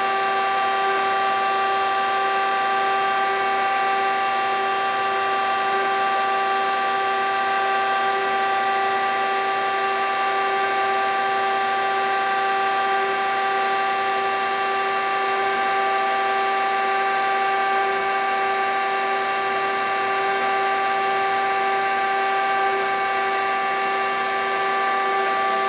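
K.O. Lee 6×18 hydraulic surface grinder running with its spindle turning and the hydraulics on, giving a steady whine made of several fixed tones that holds even throughout. It runs smoothly and sounds great.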